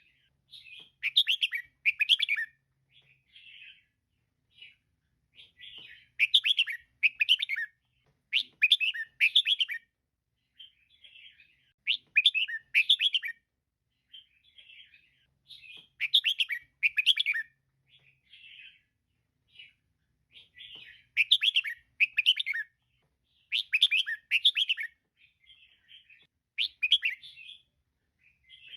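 Female red-whiskered bulbul calling: repeated bursts of quick, chattering chirps a few seconds apart, with softer single notes between them.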